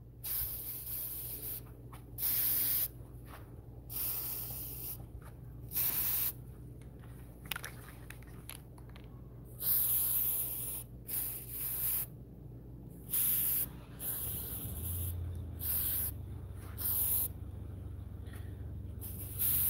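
Aerosol can of cold galvanizing (zinc-rich) spray paint, sprayed in about a dozen short bursts of hiss, each under a second long.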